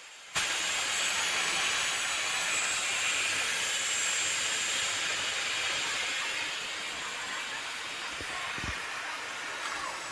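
Panasonic MC-SR540G vacuum cleaner switched on and running steadily with a loud airy whoosh, a little quieter from about halfway. A faint low bump near the end.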